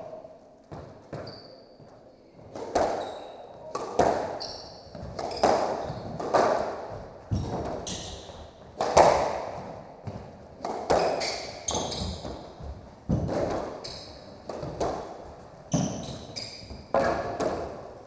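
Squash rally: the ball cracks off racquets and the court walls about once a second, each hit echoing in the court. Short high squeaks of shoes on the hardwood floor come between the hits.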